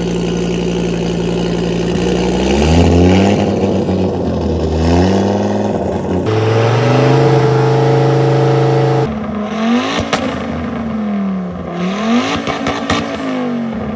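Audi Sport Quattro S1 Group B rally car's turbocharged five-cylinder engine revving. The revs climb about three seconds in and are held high for a few seconds. In the second half come quick rev blips rising and falling, with sharp cracks from the exhaust.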